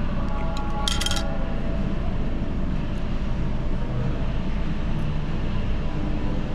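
Steady low rumble of room noise, with a short, sharp clatter about a second in.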